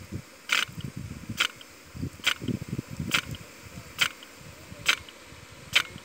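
Automat rain gun, an impact-type sprinkler, running: its swinging arm strikes with a sharp click about once a second, seven times, over a low irregular rumble from the spray.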